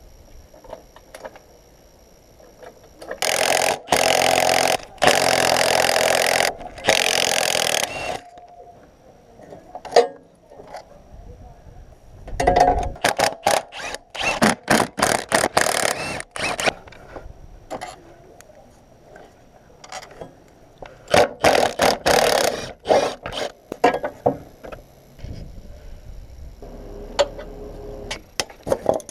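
Loud tool noise in three stretches of a few seconds each, with short knocks and clinks of metal tools between them.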